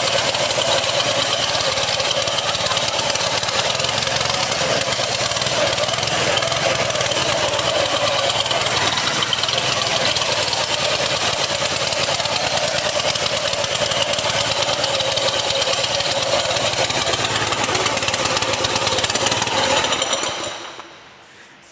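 A Tsuzumi TX 200A single-cylinder, air-cooled four-stroke gasoline engine on a TPT36-E power trowel, running steadily. It stops about a second before the end.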